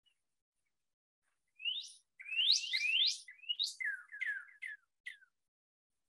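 Recorded song of an eastern-population northern cardinal played back: one phrase of clear whistled notes. A few quick up-slurred notes come first, then a faster run of short down-slurred notes that ends about five seconds in.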